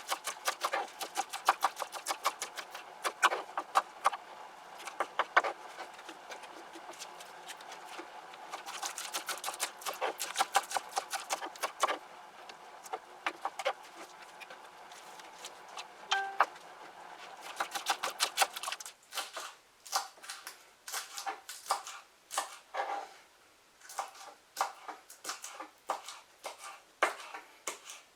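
Knife chopping onions on a cutting board in quick, rapid strokes. The strokes come sparser after about two-thirds of the way through, where a steady background hum cuts off.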